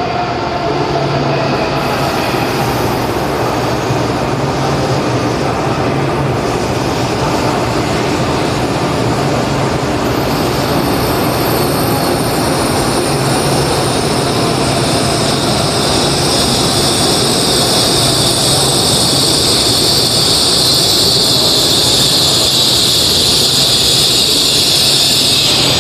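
N700S Kamome shinkansen pulling into the station and slowing along the platform, with steady running noise from the wheels and body. From about halfway through, a high screech of the wheels and brakes builds louder as the train comes to a stop, then cuts off suddenly near the end.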